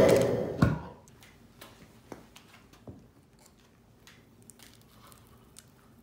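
Gas-fired mini melting furnace's propane burner shut off: its steady roar fades out within about a second, with a sharp pop as the flame goes out. Faint scattered clicks and ticks follow.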